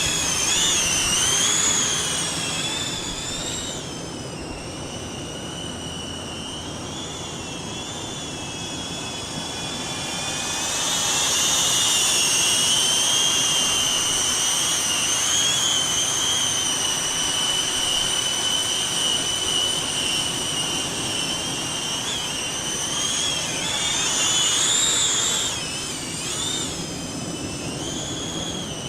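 Small caged FPV drone's propellers and motors whining in flight, the pitch wavering as the throttle changes. It eases off about four seconds in, then climbs back to full strength a few seconds later.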